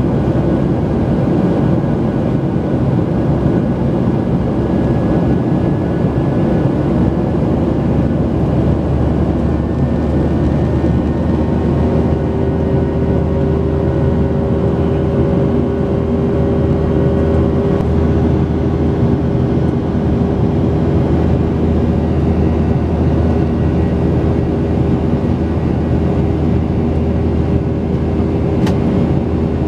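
Cabin noise inside a Boeing 737-800 with its two CFM56-7B engines running: a loud, steady rush of engine and air noise with several engine tones, one new steady tone settling in partway through.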